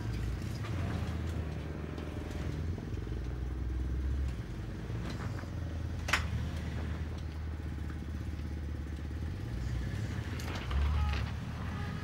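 Off-road vehicle engine running steadily, with a sharp knock about six seconds in and a brief louder surge with some clatter near the end.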